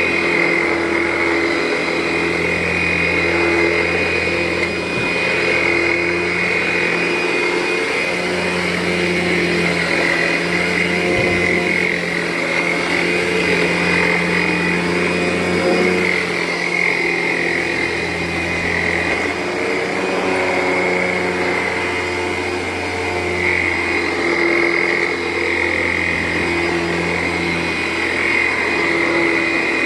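Vacuum cleaner running steadily while vacuuming carpet, a constant motor hum with a high whine over it.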